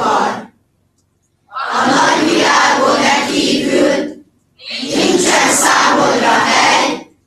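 A large group of children reciting a poem aloud in unison, in phrases of about two and a half seconds with short silent pauses between them.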